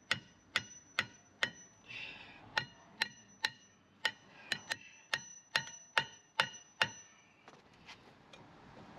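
Hammer striking a Land Rover Discovery 3's old rear brake disc to loosen it from the hub, a sharp metallic clang with a short ring about twice a second. The strikes stop a little past seven seconds in.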